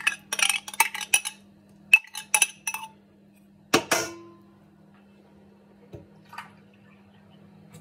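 Metal spoon scraping and clinking against a yogurt cup and a stainless steel mixing bowl as yogurt is spooned into oil: a quick run of clinks in the first second and a half, a few more around two seconds, then one louder knock on the bowl that rings briefly about four seconds in.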